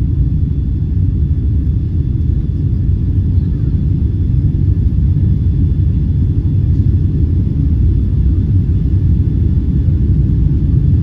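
Steady low rumble of a Boeing 777-200's engines and rushing air, heard from inside the cabin as the jet climbs out after takeoff.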